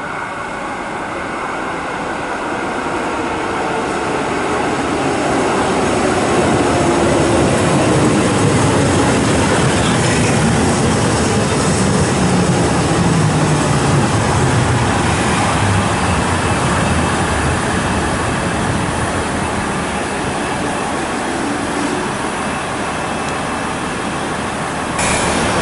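JR East KIYA E195 rail-carrier train approaching and passing close by, its running noise building over the first few seconds. A falling whine sits under the rolling noise of its wheels on the rails, and the sound jumps louder again near the end as its other power car goes by.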